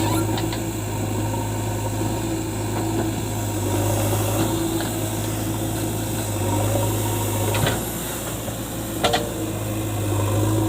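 Heavy diesel engine running at a steady speed, with two brief sharp knocks late on.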